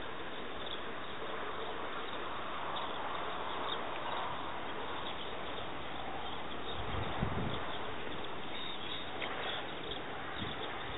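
Steady outdoor background hiss with faint, scattered high chirps, and a short low rumble about seven seconds in.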